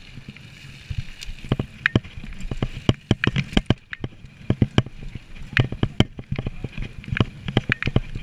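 Mountain bike ridden over bumpy ground, picked up by a camera on its handlebars: many irregular sharp knocks and rattles from the bike over a steady rumble of tyres and wind.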